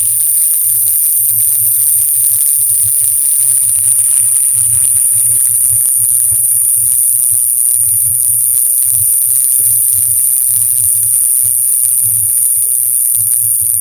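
Young rattlesnake rattling: a steady, high-pitched buzz like an electrical buzz or an insect rather than a dry rattle, because its rattle is small and not fully developed.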